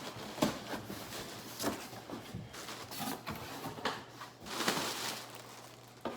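Parcel being opened and unpacked by hand: scattered clicks, knocks and rustling, with a longer rustling swish about four and a half seconds in.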